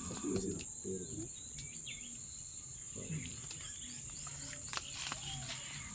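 Steady, high-pitched drone of insects, crickets or cicadas, with low voices murmuring and a few scattered clicks.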